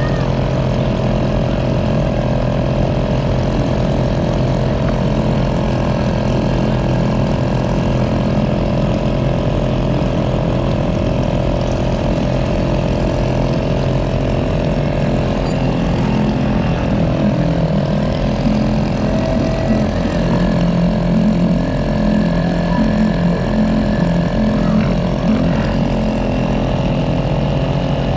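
A bumper boat's motor running steadily and close up, a constant low hum. In the last ten seconds or so its pitch wavers and shifts up and down.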